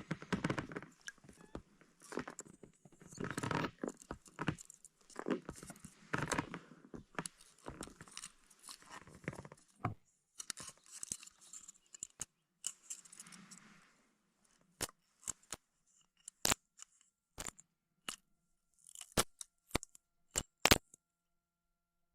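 Crinkly rustling and scraping as gear is handled, in irregular bursts for about fourteen seconds, then a scattered series of sharp clicks and knocks.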